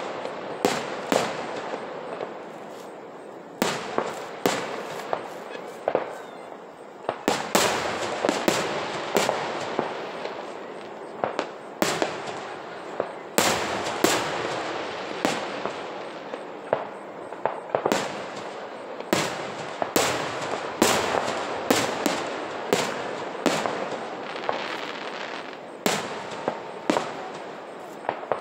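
Aerial firework shells bursting in a fireworks display: an irregular series of sharp bangs, about one or two a second, one after another throughout.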